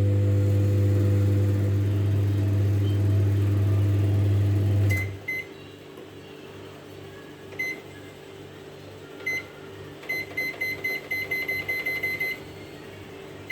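Godrej microwave oven running with a steady mains hum, which cuts off about five seconds in. Short electronic beeps follow: two at once, two single beeps a couple of seconds apart, then a quick run of about ten beeps near the end.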